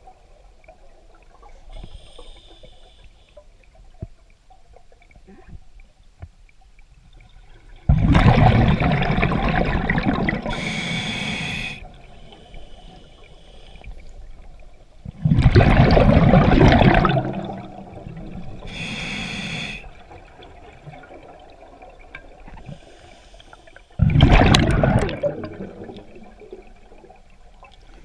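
Scuba diver breathing through a regulator underwater: three loud gushes of exhaled bubbles, about eight seconds apart, each followed a couple of seconds later by a shorter, fainter hiss from the regulator.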